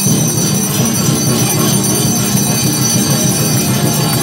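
Loud, dense din of a packed street crowd at a tatung procession, with steady high ringing tones over it.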